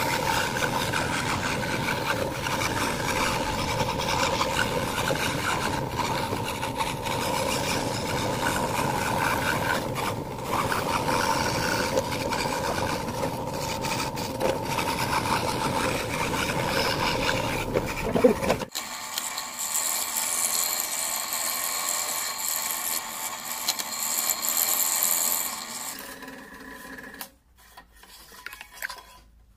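Scroll saw running and cutting fretwork in a thin wooden board, a steady buzzing hum with the rasp of the blade in the wood. A little past halfway the sound changes abruptly to a thinner, hissier noise, which dies away near the end.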